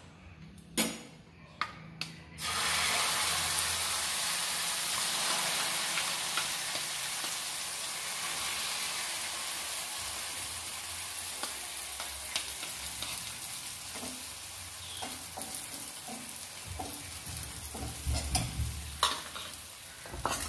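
Beaten egg mixture poured onto a hot, oiled dosa tawa: a loud sizzle starts about two and a half seconds in and slowly eases as the egg sets. Before it come a few sharp metal clinks of a spoon, and there are scattered taps and knocks near the end.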